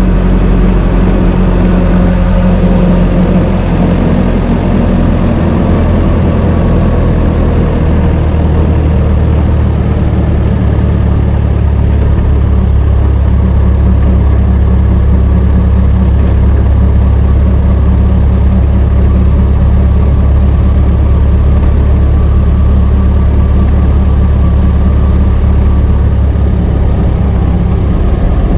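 Old car's engine running steadily at an even speed, loud and deep, with no revving.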